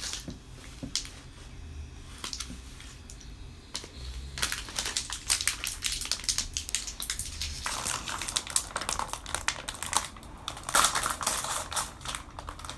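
Rapid, irregular clicking and clattering of small hard objects, growing busier about four seconds in and loudest a little after ten seconds.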